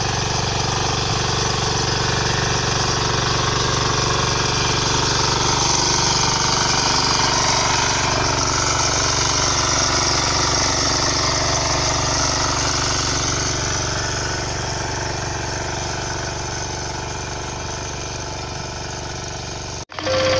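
Small engine of a walk-behind power weeder running steadily under load as its rotary tines till the soil between crop rows. The sound breaks off for a moment near the end.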